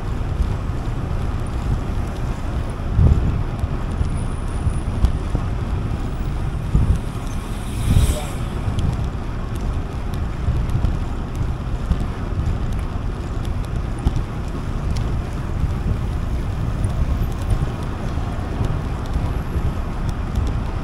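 Wind buffeting a camera microphone on a moving bicycle: a steady low rumble, with stronger gusts about three and seven seconds in and a brief rushing swell around eight seconds in.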